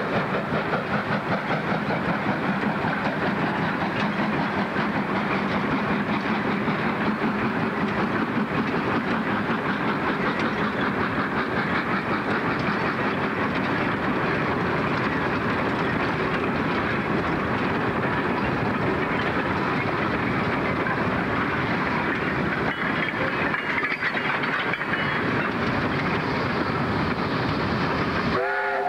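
South Maitland Railways steam tank locomotive (a 2-8-2T of the 10 class) working a train of coal wagons, with steady exhaust and running noise throughout. A steam whistle starts to sound at the very end.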